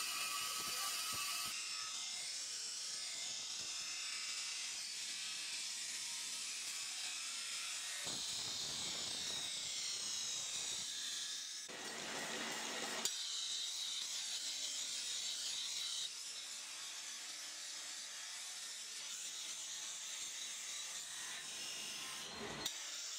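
Workshop power tools at work on knife steel: a steady, high, hissing whir that changes character abruptly several times, with a couple of brief clicks.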